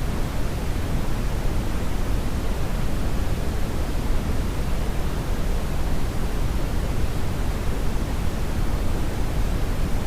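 Steady synthetic brown noise: an even, deep rumbling hiss with most of its weight in the low end, unchanging throughout.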